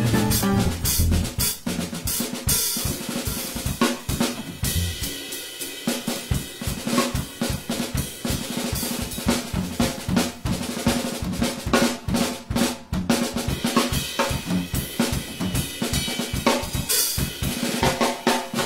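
Jazz drum kit solo in swing style: quick snare strokes with bass drum and hi-hat, and cymbal crashes a few seconds in and again near the end. The band's last chord dies away in the first second.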